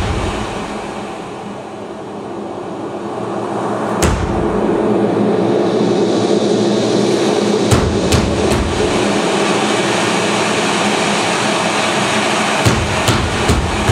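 Noise soundscape of a dance score: a dense steady rush with a low hum. It dips, then swells back about four seconds in, and is broken by sharp clicks, one about four seconds in, a few around eight seconds, and a small cluster near the end.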